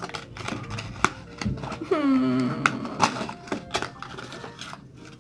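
Small cardboard blind box being torn open by hand: a run of sharp clicks, snaps and crackles of card and paper. A brief hummed vocal sound about two seconds in.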